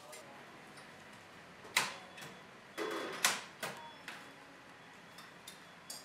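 Scattered sharp clinks and clacks of restaurant bowls and utensils, about eight in all over a low room hum, the loudest a little under two seconds in and just past three seconds.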